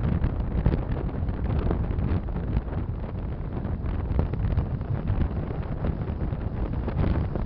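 Strong wind buffeting the microphone: a steady, heavy low rumble with rapid gusty fluctuations.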